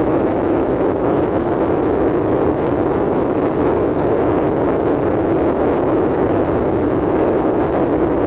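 Steady rushing noise heard from inside a car, even and unchanging throughout.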